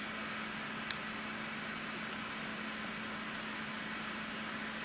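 Steady Airbus A380 passenger-cabin noise on the ground: an even hiss with a constant low hum, and a single sharp click about a second in.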